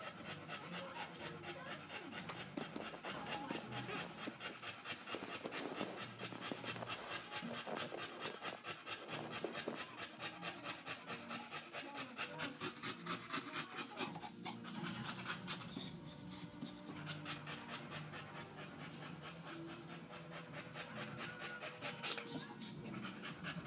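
Boxer bitch in labour, panting quickly and rhythmically, several breaths a second.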